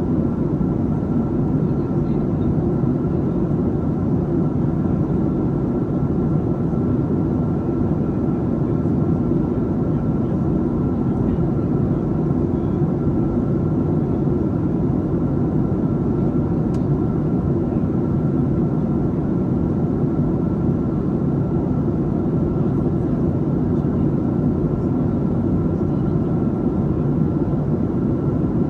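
Steady cabin noise inside a Boeing 737-700 airliner on descent: a deep, even drone of its CFM56 jet engines and the air rushing past the fuselage, with a thin steady whine above it.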